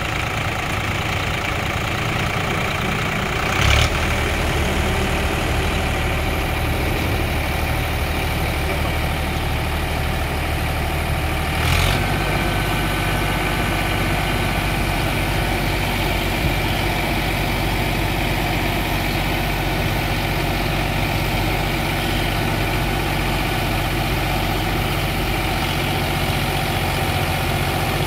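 Eicher 551 tractor's three-cylinder diesel engine running steadily at idle. A brief knock about four seconds in and another about twelve seconds in each come with a shift in the low engine tone.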